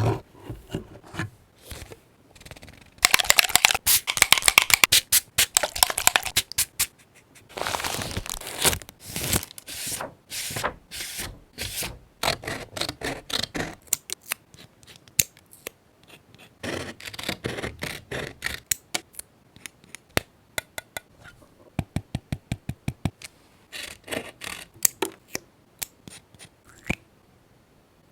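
Paper crafting handling sounds: paper and stickers being rustled, crinkled and cut, in several bursts of crisp crackling with scattered sharp clicks and taps between them.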